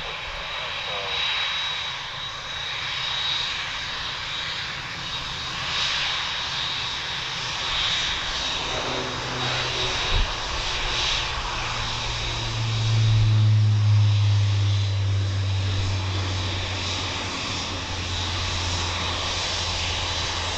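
Boeing 787-9 Dreamliner's GEnx jet engines at taxi power, a steady high whine over a hiss. About twelve seconds in, a deeper drone swells, loudest as the aircraft turns broadside close by, then holds.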